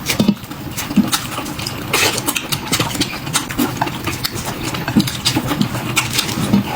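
Close-miked eating: chewing and lip-smacking on dumplings, with many irregular sharp clicks.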